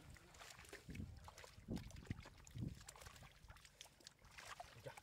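Hands working in shallow muddy water, making irregular small splashes and sloshes with a few soft thuds.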